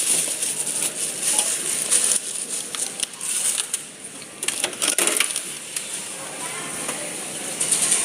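Grocery items being handled on a supermarket shelf: scattered clicks, knocks and crinkling of packaging over a steady high hiss.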